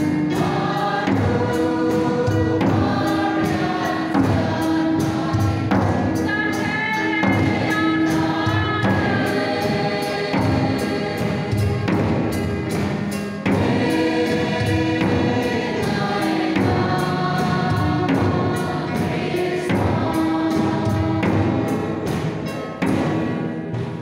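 A mixed group of men and women singing a Christian song together into microphones, with a steady beat behind the voices. The song ends and the sound falls away just before the end.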